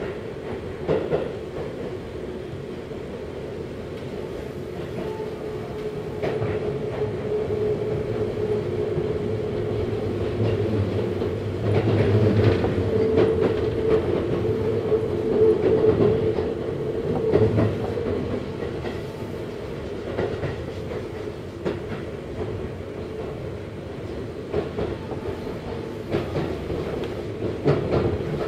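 Seibu Ikebukuro Line electric train heard from inside the carriage while running: a steady hum with wheels clacking over rail joints, louder through the middle and easing towards the end.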